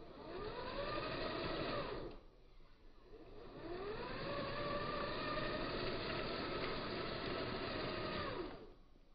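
Twin 370-size electric motors and geartrain of an RC Unimog crawler whining under throttle. A short run rises and falls in pitch, there is a pause about two seconds in, and a longer run from about three seconds rises, holds steady and winds down near the end.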